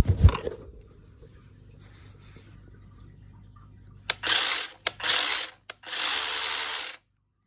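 A battery-powered ArtKunst mini chainsaw run up three times in short bursts, the motor and chain whirring loudly and stopping sharply each time; the last burst lasts about a second. A sharp knock sounds at the very start.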